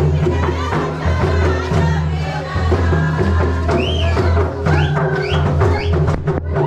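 Loud folk dance music with drums and a heavy, repeating bass line. From about four seconds in, high tones slide up and down over it.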